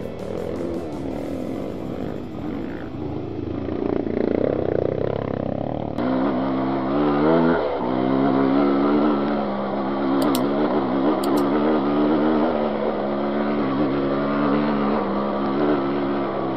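Trail motorcycle engine running as it rides a dirt forest track, the revs rising and falling with the throttle. About six seconds in the sound changes abruptly to a steadier running note.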